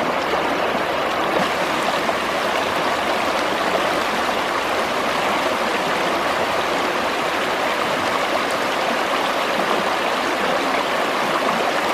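The Schwechat river flowing: a steady, even rush of running water.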